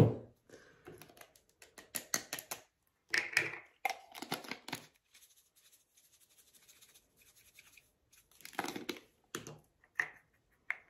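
Plastic glitter jars and a small measuring cup handled on a craft table: a sharp knock at the start, then irregular bursts of clicking, rattling and scraping, with a quiet stretch of a few seconds in the middle.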